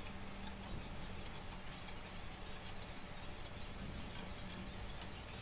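Wire balloon whisk stirring a thin egg, milk and sugar batter in a mixing bowl, its tines ticking lightly and irregularly against the bowl. The whisking is to dissolve the sugar into the beaten eggs.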